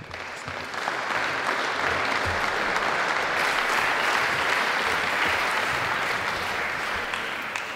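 Audience applauding, swelling over the first second or so, holding steady, and dying away near the end.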